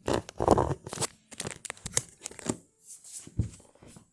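Close rustling and crinkling with quick clicks and knocks, thinning out after about two seconds to a few separate taps and one low thump: handling noise from the recording phone or camera being fiddled with.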